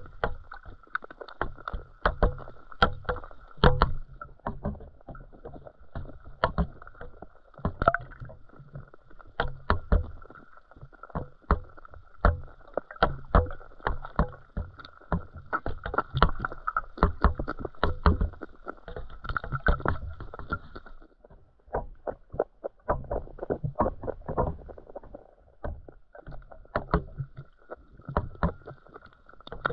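Underwater sound picked up by a GoPro in its housing beside a bread-filled wire feeder cage: irregular sharp clicks and knocks, several a second, over a muffled watery wash, with a faint steady high hum.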